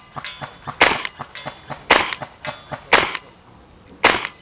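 Tokyo Marui M4A1 MWS gas blowback airsoft rifle on green gas firing single shots, four sharp reports about a second apart. Fainter ticks come between the shots.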